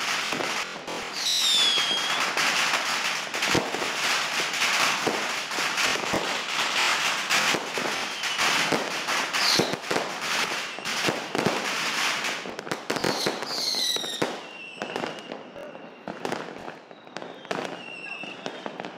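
Fireworks display: dense, continuous crackling with many sharp pops and a few falling whistles. After about 14 s the bursts thin out to scattered pops.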